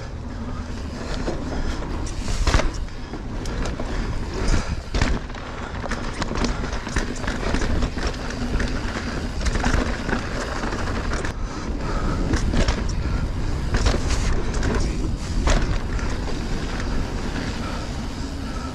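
Mountain bike rolling over dirt singletrack: tyre noise on the trail, with frequent knocks and rattles from the bike over roots and bumps, and wind rumbling on the microphone.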